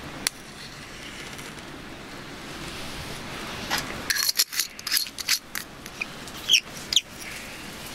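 A match struck to light kindling in a wood-burning stove, with a short scrape followed by a run of clicks and rattles as the match case is handled. Two short high chirps come near the end.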